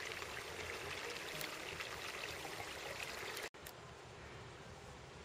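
Steady outdoor rushing noise, broken off abruptly by an edit cut about three and a half seconds in, after which a quieter, fainter hiss continues.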